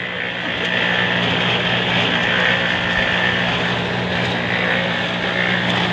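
Drum concrete mixer running, a steady engine drone with the churn of the turning drum.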